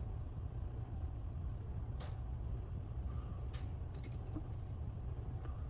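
Faint, light clicks of small metal tools on phone parts during an iPhone repair, about three times, over a steady low background hum.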